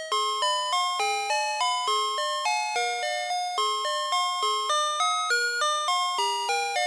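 VTech Alphabert's Sonic Phonix electronic toy playing a song on its built-in synthesizer: a simple single-line tune of chime-like electronic notes, each struck and fading, about three notes a second.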